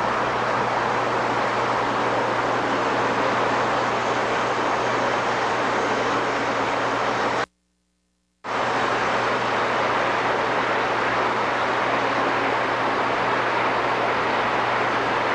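O scale model passenger train running along the layout track: a steady, even noise of wheels and motor with a steady low hum. It cuts out to silence for about a second midway, then resumes.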